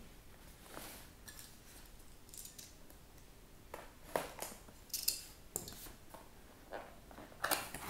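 Cardboard box handled and turned over on a tabletop: scattered scrapes, rubs and light knocks of cardboard, the sharpest of them in the second half.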